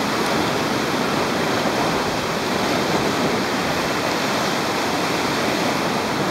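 Steady, unbroken rush of sea water, swell washing and breaking along the base of rock cliffs.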